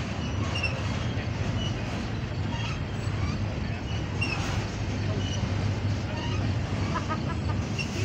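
Double-stack intermodal train's loaded well cars rolling past at close range: a steady rumble of steel wheels on rail, with a few faint short high squeaks.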